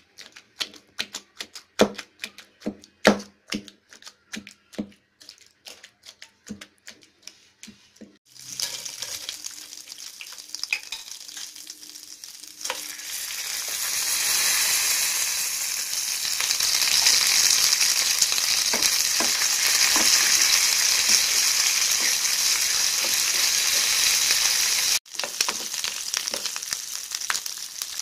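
A stone pestle knocks repeatedly against a granite mortar, about one to two sharp knocks a second, as chopped onion is worked into the chutney. About eight seconds in, this gives way to hot oil sizzling with a tempering of dried red chillies and dal in a frying pan. The sizzling grows louder a few seconds later, breaks off briefly near the end and resumes once curry leaves go in.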